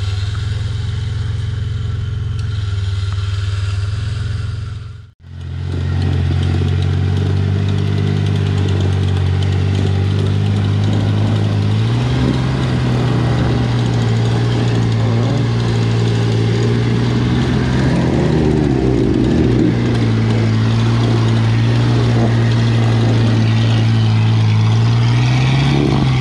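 Mitsubishi Pajero's 3.0-litre V6 engine running at steady low revs as the truck creeps up a steep forest slope on a winch line. The revs step up about twelve seconds in and again near the end. The sound drops out for a moment about five seconds in.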